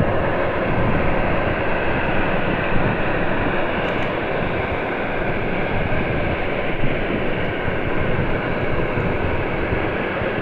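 Jet airliner engine noise, a steady loud hiss and rumble, with wind buffeting the microphone in the low end.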